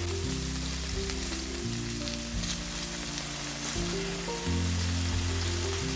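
Background music with sustained low chords that change every second or so, over the steady sizzle of food frying in a pan.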